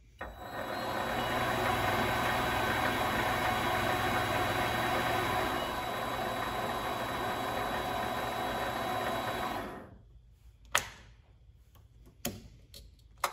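Vevor MX 400 mini lathe's variable-speed spindle motor spinning up and running with a steady hum for about ten seconds. The sound eases slightly a little past halfway, then it is switched off and stops, followed by a few sharp clicks. The owner suspects a failing speed potentiometer that lets the spindle speed sag on its own.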